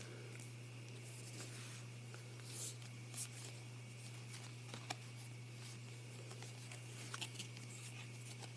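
Faint rustles and light clicks of trading cards being handled and slid one behind another, a few soft swishes spread through, over a steady low electrical hum.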